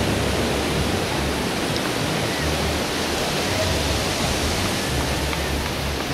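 Ocean surf washing onto a sandy beach: a steady, unbroken rush of noise.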